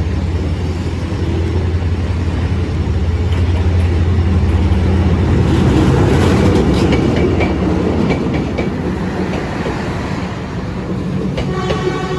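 A D19E diesel-electric locomotive passing with a passenger train. Its engine gives a steady low drone, and the rolling noise of the train swells to its loudest about halfway through, then eases.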